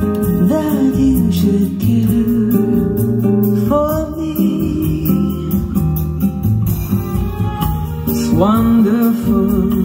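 A song with singing and guitar played back loud through Altec A7 'Voice of the Theatre' horn loudspeakers, the voice sliding into its notes a few times.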